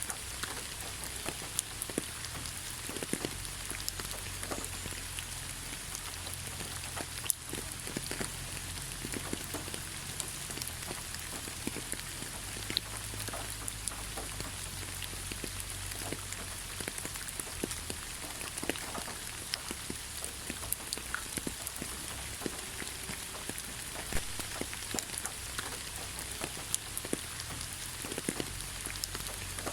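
Steady rain falling on leaves, with many scattered individual drops ticking irregularly over a constant hiss of rainfall and a low rumble underneath.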